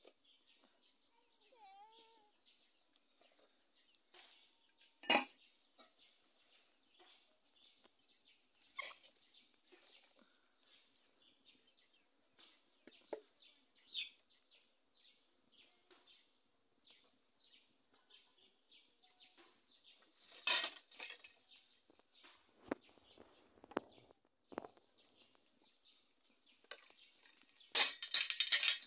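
Enamel and metal dishes and lids clinking and knocking now and then as food is dished out, with a louder clatter of metal lid and tray near the end. Under it a faint steady high hiss, and a single bird chirp about two seconds in.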